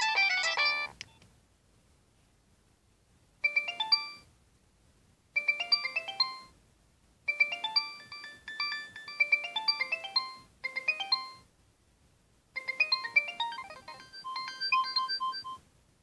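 Nokia 6610i mobile phone playing its preloaded ringtones through its small speaker. One synthesized tune cuts off about a second in. After a pause of a couple of seconds, another electronic melody of several notes at once plays in five short bursts with brief gaps between them.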